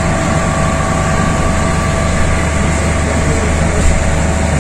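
Air-conditioning plant of a railway sleeper coach running, heard from inside the compartment: a steady drone with a deep hum and a few constant whining tones.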